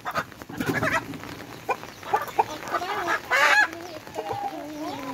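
Hens clucking in a coop: a string of short calls, a louder call about three and a half seconds in, then softer wavering clucks.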